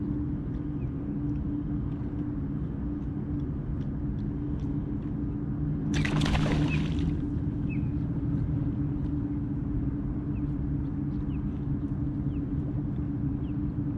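A redfish blowing up on a walk-the-dog topwater spook lure: one loud splash about six seconds in, lasting about a second, as the fish comes out of the water and misses the lure. A steady low hum runs underneath.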